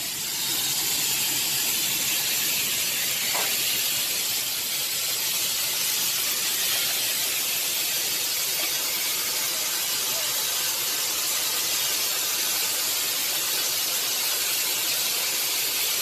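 Steady high hiss with no break or change in level.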